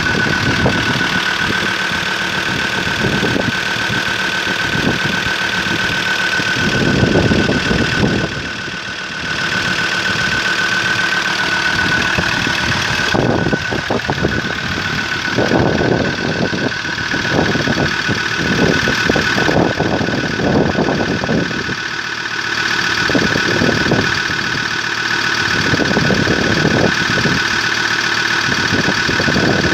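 Ford Ranger PX 3.2 L five-cylinder turbodiesel engine idling steadily, with a steady high-pitched whine.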